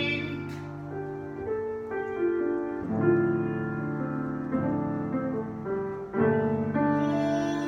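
Piano playing an interlude of held chords, a new chord struck about every second and a half.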